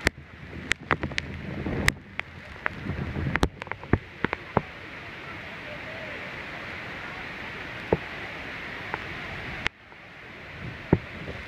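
The Horseshoe Falls and the churning water below them make a steady rushing roar, heard from the deck of a tour boat close under the falls. Many sharp clicks and pops come through on the microphone in the first few seconds, and a few more later. The level drops suddenly near the end, then builds again.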